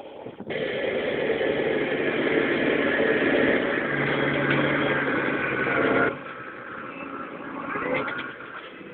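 An engine running loudly. It starts abruptly about half a second in and cuts off abruptly about six seconds in, leaving a quieter noise with a brief clatter near the end.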